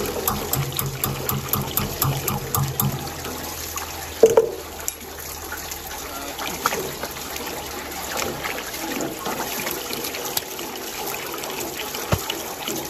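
Water running and trickling steadily, with scattered clicks early on and one loud knock about four seconds in.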